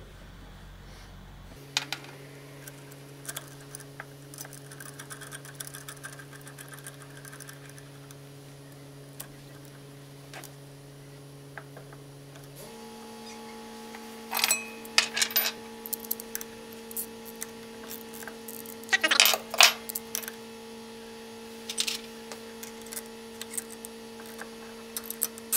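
Small metallic clicks and clinks of a bearing puller's nuts and threaded rods being handled, then short bursts of rapid ratchet clicking as the puller's centre screw is tightened onto the electric motor shaft. A steady hum runs underneath and shifts to a higher pitch about halfway through.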